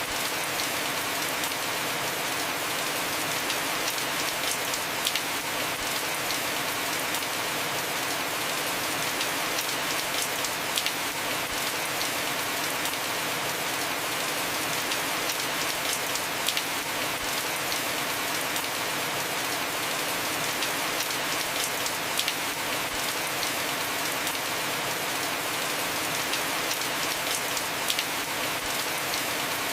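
Heavy rain falling steadily on a roof, with scattered sharper drops hitting close by.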